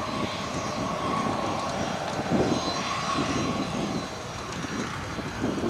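North American P-51D Mustang's Packard Merlin V-12 engine running steadily at taxi power, propeller turning, as the fighter rolls along the taxiway.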